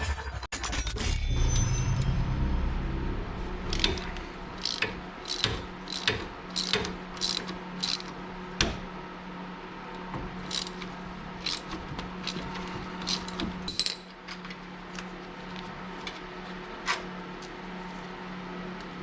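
Hand tools and metal brake parts clinking and tapping in scattered, irregular clicks while a rear brake caliper is being taken off, over a steady low hum.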